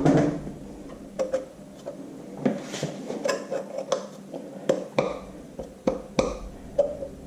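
Irregular light metallic taps and clinks, about a dozen, as a new bushing held by a zip tie is worked into the bore of a tractor's front bolster.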